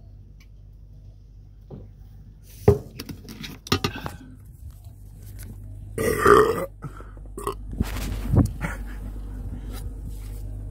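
A man belching loudly once, about six seconds in, just after drinking; a few sharp knocks and clicks come before it.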